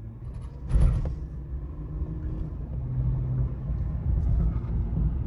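Isuzu D-Max pickup driving along: steady low road and engine rumble, with a sharp thump about a second in.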